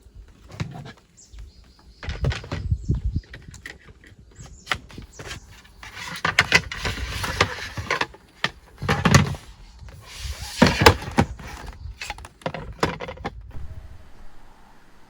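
Handling noises: a run of clicks and knocks, with two longer spells of rustling about six and ten seconds in.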